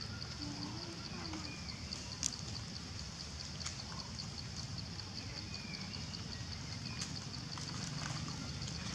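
Outdoor ambience: a steady, rapidly pulsing high-pitched buzz with a few faint short chirps, and one sharp click about two seconds in.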